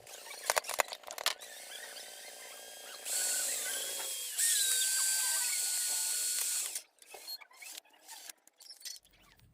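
Mini drill running in two bursts, winding fishing line off a fishing reel onto an empty spool, with a high motor whine that shifts in pitch as the speed changes. It stops about seven seconds in, followed by a few clicks of handling.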